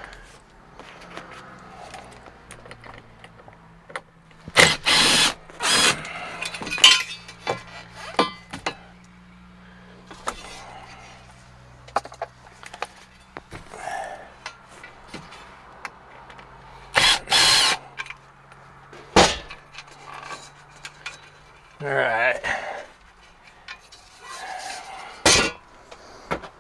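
Interior trim panels and fittings in a truck cab being pried, pulled and handled, heard as several short bursts of clatter and scraping over a low steady hum.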